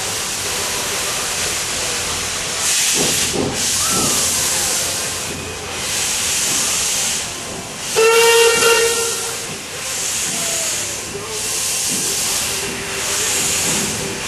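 Steam locomotive hissing steam, with slow, evenly spaced exhaust chuffs from about three seconds in. About eight seconds in it gives one short steam-whistle blast of about a second, the loudest sound.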